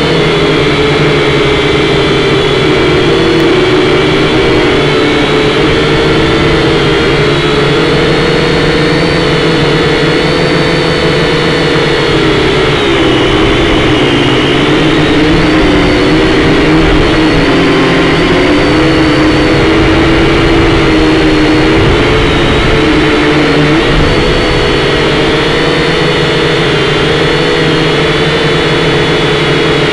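Kyosho Quattrox Eye toy quadcopter's motors and propellers buzzing loudly, picked up by its own onboard camera. The whine is steady but its pitch wavers up and down as the drone holds and shifts its position in flight.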